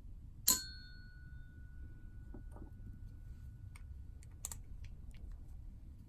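A sharp metallic clink about half a second in, ringing on as one clear tone for several seconds, followed by a few light clicks of small metal parts and tools being handled during reel repair.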